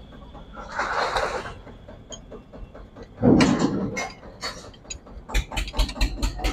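Wrench work on the nuts of a tractor's engine-to-gearbox joint as it is bolted back together: a short metallic scrape, then a clunk, then a ratchet wrench clicking quickly and evenly from about five seconds in.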